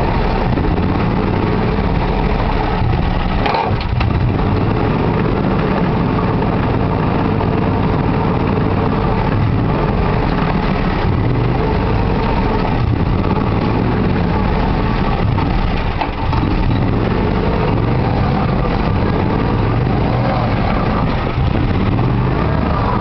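ARGO amphibious ATV's engine running steadily, heard close up from the driver's seat.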